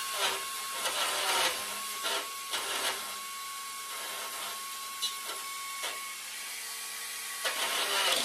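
Small hand-held cut-off tool running at speed with a steady high whine and a hiss, its abrasive disc grinding in short bites against a rusted washer on a seized fender bolt, cutting the washer off; the grinding gets louder near the end.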